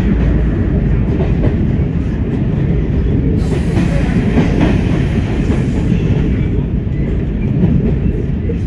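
Class 104 diesel multiple unit running along the line, heard from the driver's cab: a steady diesel rumble with wheel-on-rail noise. From about three to six seconds in the sound turns sharper and hissier as the train passes under a stone arch bridge.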